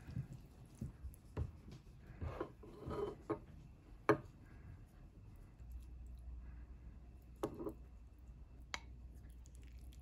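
A wooden spoon scooping stir-fried goya champuru and piling it onto a bowl of rice: soft clicks, taps and scrapes of the spoon on the plate and bowl and the moist food shifting, the sharpest tap about four seconds in.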